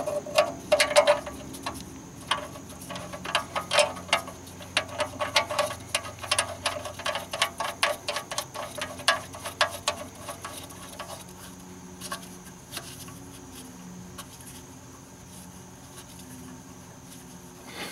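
Rapid small clicks and ticks as the oil drain plug is spun back into the oil pan by a gloved hand. They come thick and fast for about eleven seconds, then thin out and stop.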